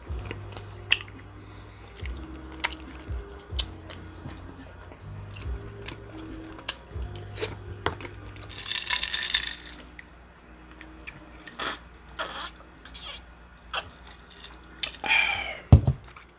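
Close-miked eating: chewing and crunching food with many small clicks and smacks, over background music with a repeating bass line that stops about halfway through. A short rustling burst comes about nine seconds in.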